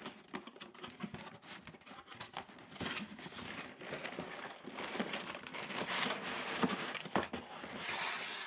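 Cardboard packaging being opened by hand: box flaps pulled open and the lid lifted off, with irregular rustling, scraping and light knocks of cardboard.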